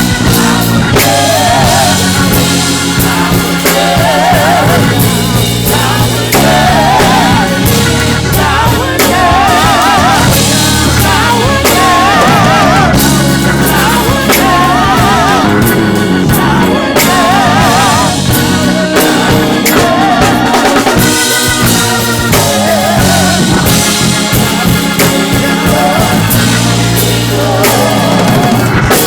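Live gospel praise band playing: a drum kit keeps a steady groove under bass and organ, while wavering, vibrato-laden vocal lines rise over the top in repeated phrases.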